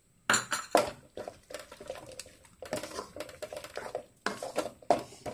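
Wooden slotted spatula stirring and scraping a sticky mixture of jaggery syrup, grated coconut and roasted nuts in a metal pan: a run of irregular scrapes and light knocks.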